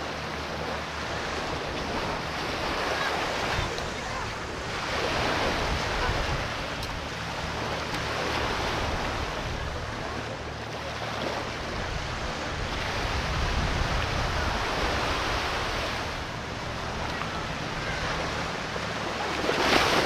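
Small surf washing up the sand at the water's edge, swelling and fading every few seconds, with wind rumbling on the microphone. A louder rush comes near the end.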